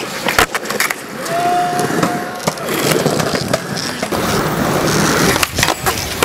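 Skateboard wheels rolling with a continuous rough rumble over hard ground, broken by several sharp clacks of the board hitting the ground.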